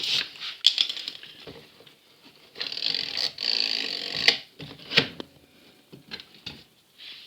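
Hands handling the plastic drain pump and valve cover of a washing machine: scraping and rubbing of plastic in the middle, with sharp clicks and knocks of the parts, the loudest just past four and about five seconds in.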